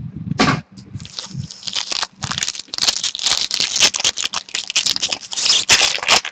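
Trading card pack wrapper crinkling and tearing as it is opened, a busy run of small crackles that grows denser from about two seconds in.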